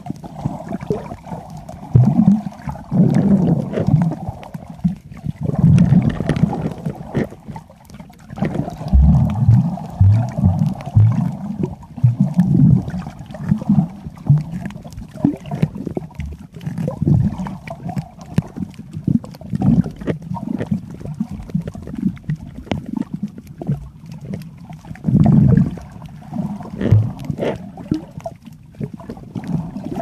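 Muffled underwater rumbling and sloshing, with irregular clusters of low thumps, as water moves around a submerged camera.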